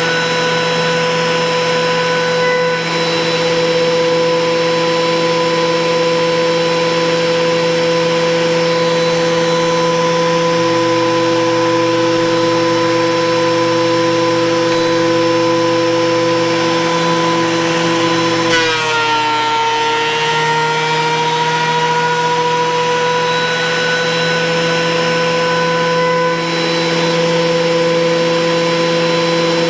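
DeWalt DW734 thickness planer running with a steady high whine and hiss as a board on a sled feeds through it. About eighteen seconds in, the whine drops sharply in pitch and climbs back over a couple of seconds, the motor slowing under the load of the cut.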